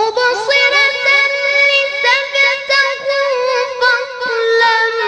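A boy's high voice reciting the Quran in the melodic tilawah style, starting abruptly with long ornamented runs and settling onto a lower held note near the end.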